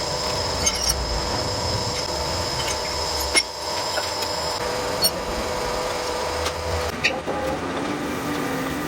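A machine running steadily with a constant whine, with a few sharp metallic clicks and knocks at irregular moments.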